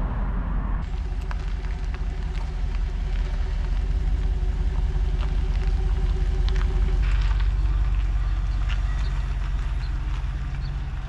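Steady low road-and-engine rumble of a vehicle driving, heard from inside the cabin, with a few small ticks and rattles.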